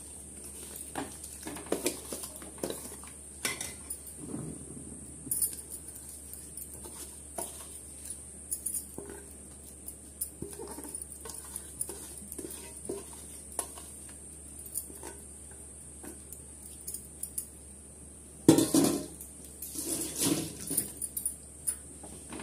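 A metal spoon scraping and clinking against a steel bowl as soaked rice is scraped out of it into a pot of milk, then a long steel spoon stirring and knocking against the aluminium pot. There is a louder run of knocks and scrapes near the end.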